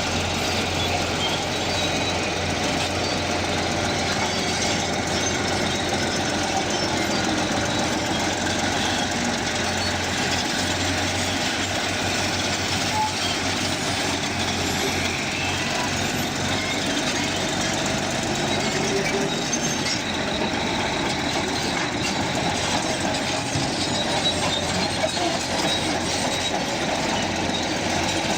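Bulldozer working: its diesel engine running and its crawler tracks moving, a steady loud mechanical noise.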